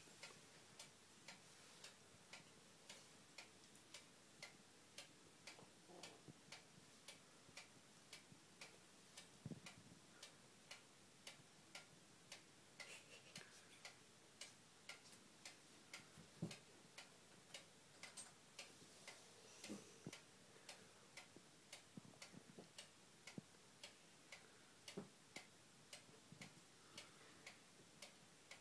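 Clock ticking steadily at about two ticks a second in a near-silent room, with a few faint soft thumps.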